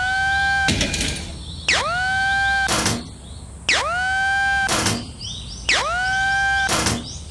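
A looping cartoon level-crossing alarm sound effect. A tone swoops up and holds for about a second, then a short noisy burst follows. The cycle repeats about every two seconds, four times.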